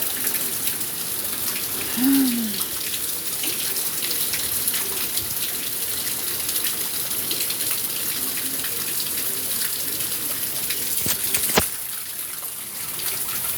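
Heavy rain falling steadily in a thunderstorm, a continuous hiss with many small drop impacts. A single sharp click comes about eleven and a half seconds in.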